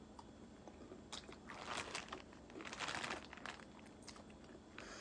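Mouth sounds of eating close to the microphone: crunchy biting and chewing of food in two spells of crackly clicks, about a second in and again around three seconds in.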